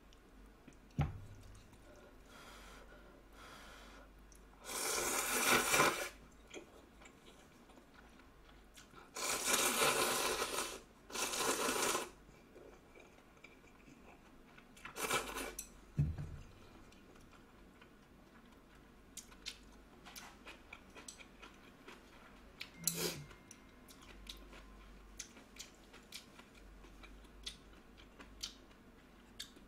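A person slurping instant ramen noodles from a bowl at close range, in several long slurps, the biggest in the first half. Between the slurps come small wet clicks and smacks of chewing.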